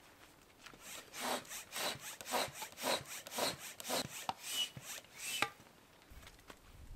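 Hand air pump inflating an inflatable tent through a hose: about ten rhythmic strokes of rushing air, roughly two a second, that stop about five and a half seconds in.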